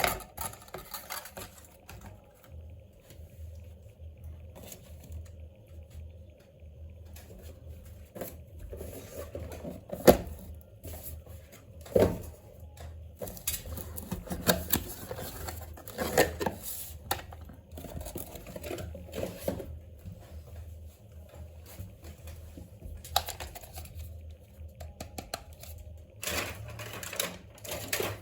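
Irregular clicks, taps and light rattles of small hard objects being handled, over a low steady hum, with two sharper knocks about ten and twelve seconds in.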